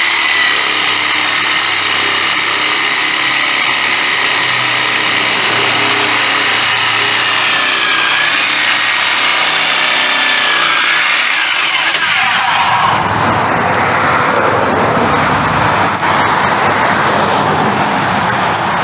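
Power tool cutting through the Jeep's metal body, running loud and continuously, its sound turning heavier and lower about twelve seconds in.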